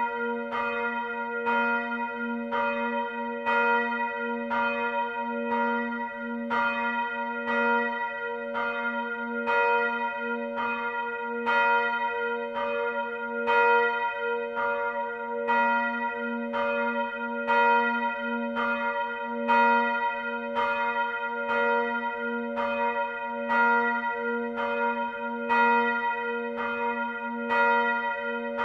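A swinging church bell ringing, its clapper strikes coming steadily a little under twice a second. The bell's low hum note sounds on unbroken between strokes.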